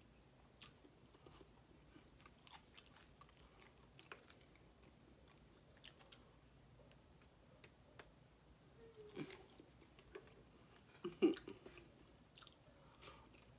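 A person chewing and biting food close to the microphone, with many small wet mouth clicks. A few louder mouth sounds come a little past the middle and again about two seconds later.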